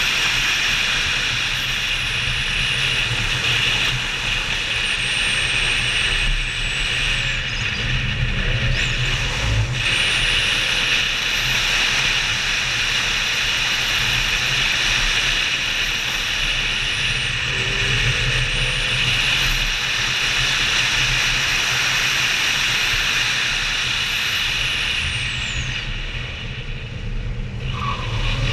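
BMW M5 F90 driven fast on the road: a steady rush of wind and road noise, with the car's V8 running underneath.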